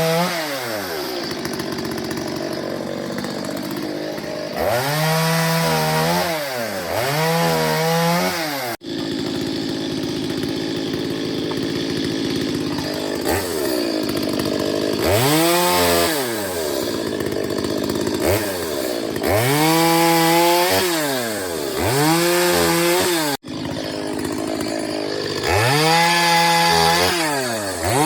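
Chainsaw cutting wood, its engine revving up and dropping back again and again, the pitch rising and falling every second or two. The sound breaks off suddenly twice.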